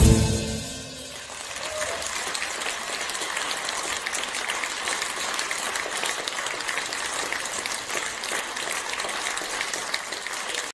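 The ensemble's final chord dies away in the first second, then the audience applauds, building up and holding steady with many claps.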